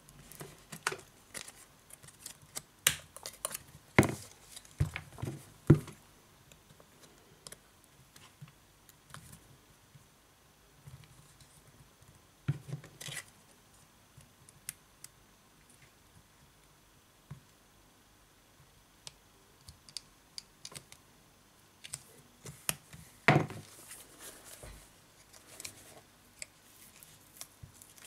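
Thin metal knife blade clicking and scraping against the glass and frame edge of a Sony Xperia Z2 Tablet as it is worked into the seam to pry off the display: sharp scattered clicks and scratches, in clusters in the first few seconds, briefly around halfway, and again near the end.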